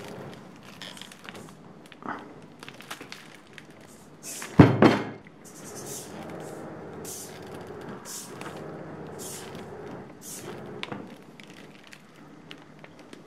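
Handling knocks and clicks on a tabletop, with one heavy thud about four and a half seconds in, as the robotic arm and a cast-iron dumbbell are moved about. Short hissy bursts come roughly once a second over a faint steady hum.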